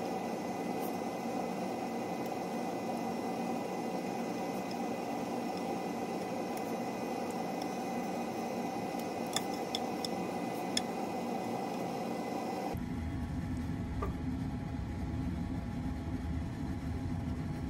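A steady mechanical whir, with a few light clinks of a utensil against the pot between about nine and eleven seconds in. Near thirteen seconds the whir cuts to a lower rumble.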